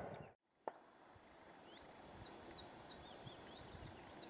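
A songbird singing a run of about eight short, high notes, roughly three a second, over faint quiet countryside. Near the start the sound drops out altogether for a moment and a single click follows.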